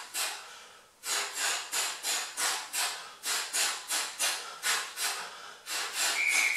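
A man's sharp, hissing breaths forced out through the mouth, about three a second, one with each punch and elbow strike of a shadowboxing drill. A short high beep sounds near the end.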